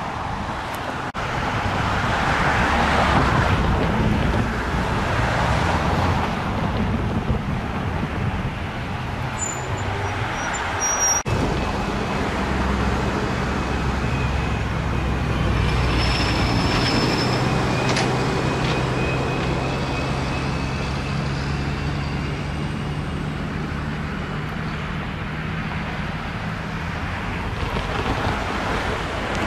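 Diesel-electric road-switcher locomotive approaching slowly, its diesel engine running with a steady low drone that becomes clear partway through. A faint high whine sounds for several seconds in the middle.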